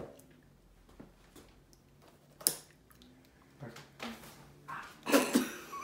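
Quiet small-room tone with light handling noises: a sharp click about halfway through and a short, louder noise near the end.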